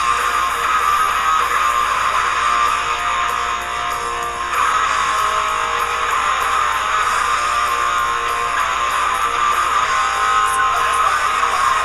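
Hard rock band demo recording with electric guitars playing; the sound is thin and midrange-heavy, dipping briefly about four seconds in.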